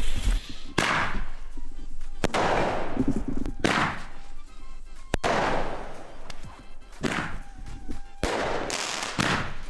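Firework shell tube (bomberør) firing a series of shots, about seven in all, roughly one every one and a half seconds starting about a second in; each is a sudden bang that trails off into a fading hiss.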